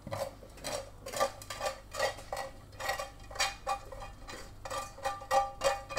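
A silicone cooking spoon scrapes and knocks against a frying pan as diced chicken and bacon are pushed out into a saucepan of pasta: a run of short scrapes and clinks, about two a second, with a metallic ring near the end.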